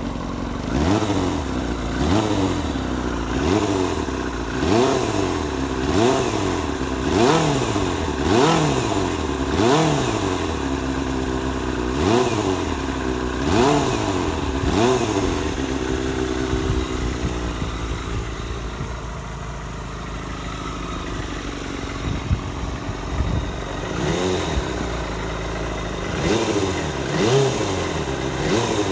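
Kawasaki ZXR250 inline-four engine breathing through a Tsukigi aftermarket silencer with the baffle fitted, revved in quick throttle blips that rise and fall about once a second. It settles to a steadier idle for a few seconds past the middle, then is blipped again near the end.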